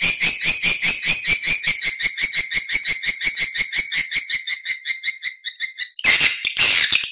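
Swiftlet lure calls: a rapid rattling trill of high chirps that slows and fades over about five seconds, then a loud harsh chirping call near the end. This is the kind of call played to draw swiftlets to a nesting house.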